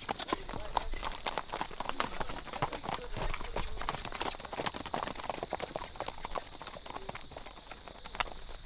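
Horses' hooves clip-clopping on a dirt road as a group of riders walks along: many overlapping, irregular hoofbeats that grow quieter near the end, with a steady high tone underneath.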